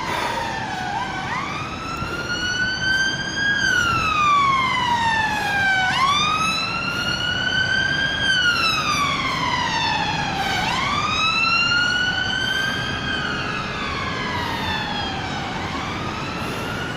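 Emergency vehicle siren sounding a slow wail, its pitch rising and falling about once every five seconds.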